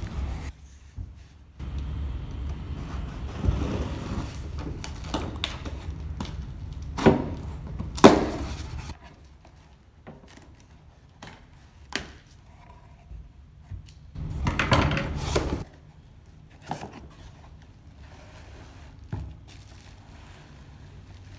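A long cardboard box being cut open and handled: scraping and rustling of cardboard, with several sharp knocks. From about two-thirds of the way in it goes quieter, with only a few small clicks and handling sounds.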